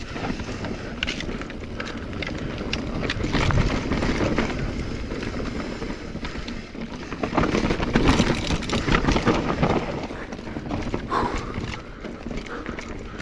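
Specialized Stumpjumper EVO mountain bike rolling over a rough dirt trail: tyres crunching on dirt and rock, with the frame and drivetrain rattling and knocking. The clatter gets louder in rougher stretches about four and eight seconds in.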